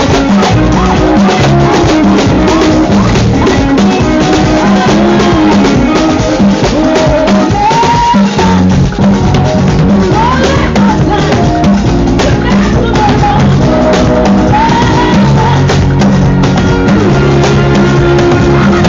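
Loud music with drums and bass, with a voice singing a melody over it at times.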